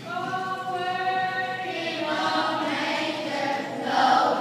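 Children's choir of fourth graders singing together. It opens with a long held note, then moves on through further sung notes.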